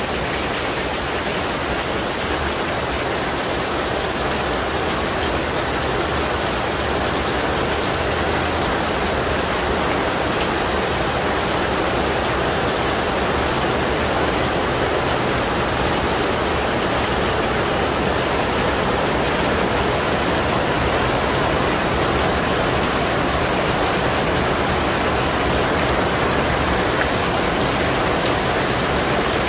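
Heavy rain falling steadily on a paved courtyard and a canopy roof, with water pouring off the canopy's edge; an even, unbroken hiss throughout.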